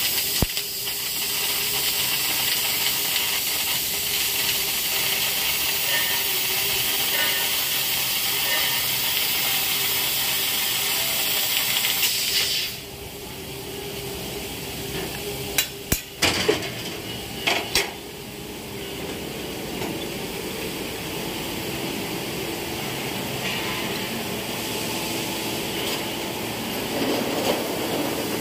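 Bodor P6 12 kW fiber laser cutter cutting through 30 mm metal plate: a loud steady hiss of the cut and spark spray that stops abruptly about twelve seconds in. A few sharp knocks follow, then a quieter steady machine background.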